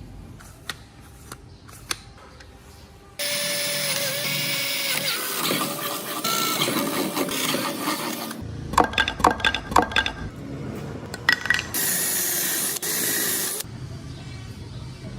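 Handheld power tool working wood in short stretches that start and stop abruptly, its pitch wavering under load, with a run of sharp knocks in the middle and a brief high steady whine near the end.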